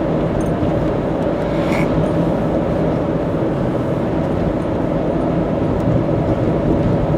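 Steady road noise inside a car at expressway speed: tyre rumble and engine hum at an even level.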